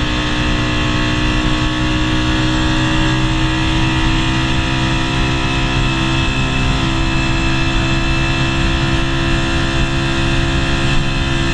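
Honda GB250's single-cylinder four-stroke engine running at a steady cruising speed, its note holding nearly constant, over a dense rushing noise from riding.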